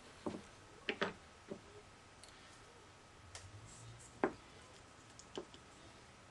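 About half a dozen light knocks and clicks, spaced irregularly, as firm leather-hard clay slabs and a slip brush are handled and set down on a worktable.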